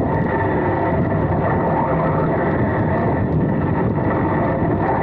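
Electric 1/10-scale Serpent SDX4 4WD RC buggy heard from its own on-board camera while racing over grass: a motor and drivetrain whine that rises and falls with the throttle, over a steady rumble and rattle from the chassis and tyres.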